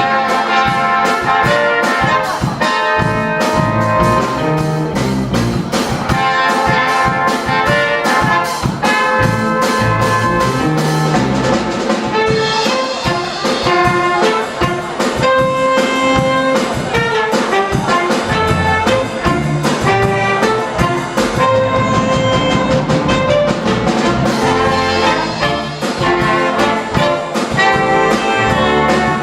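High school jazz band playing live, with trumpets, trombones and saxophones over drums and bass at a steady beat.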